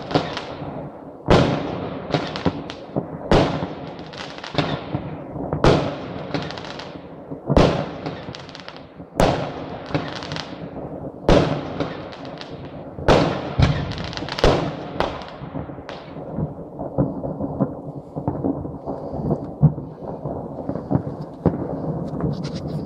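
Aerial fireworks bursting, a sharp bang every second or so, each with an echoing tail. After about sixteen seconds the bangs give way to a denser, duller rumble of many bursts.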